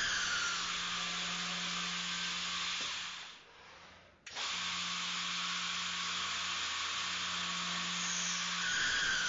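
GANNOMAT Vantage 76 line boring machine running, a steady motor hum with a hiss over it. It fades away about three seconds in and cuts back in abruptly about a second later.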